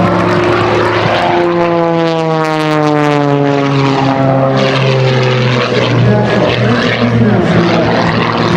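The propeller and piston engine of an MXS-RH aerobatic plane flying a display. The drone's pitch falls steadily for a few seconds as it goes by, then turns into a rougher, noisier drone.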